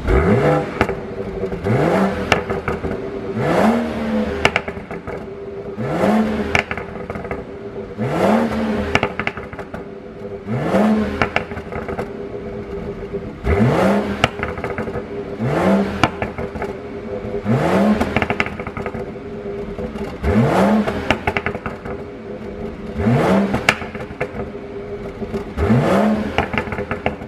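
A BMW 540i's turbocharged 3.0-litre straight-six is blipped about a dozen times. Each rev climbs quickly and falls back, followed by a run of pops and crackles from the exhaust on the overrun, the burble tune programmed into the engine.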